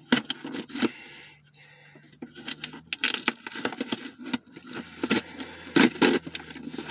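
A key being worked into a shipping package to cut it open, with the packaging scraping, crackling and tearing in short irregular bursts.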